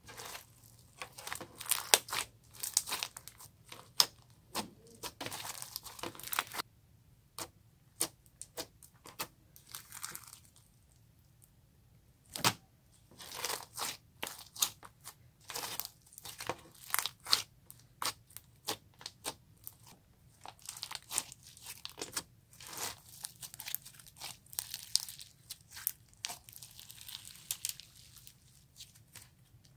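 Hands squeezing, stretching and poking glossy slime, giving quick sticky clicks and crackles in clusters. The clicks thin out for a few seconds about a quarter of the way through.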